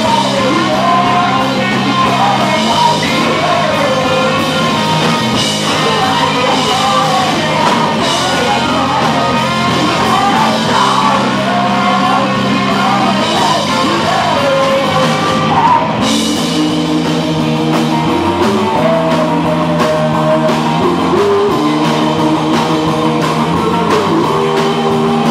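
Live rock band playing: lead vocals sung over electric guitars and a drum kit with cymbals.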